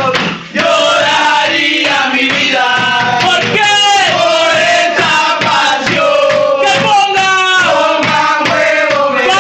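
A group of men singing a football terrace chant in unison over a steady drum beat, with a brief drop about half a second in.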